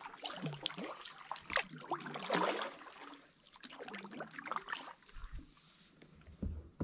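Kayak paddle strokes in shallow still water: the blades dip, splash and drip in an irregular patter that thins out over the last couple of seconds.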